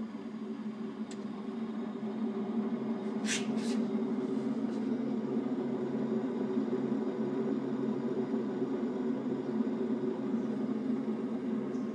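A sauna making a strange noise: a steady low drone with several held tones, swelling about two seconds in. Two short, sharp high-pitched noises come a little after three seconds in.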